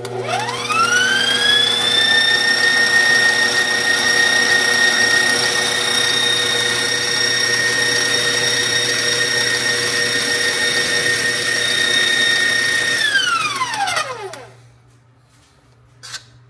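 Electric stand mixer with a wire whip beating mashed potatoes in a steel bowl. The motor's whine rises as it spins up, holds steady, and falls away as it is switched off about thirteen seconds in. A short clink comes near the end.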